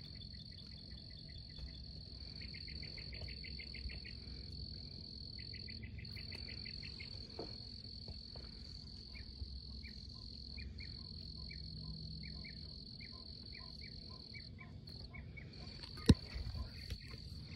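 Night insect chorus: a steady high-pitched trill with bursts of rapid pulsed chirping over it. One sharp knock near the end.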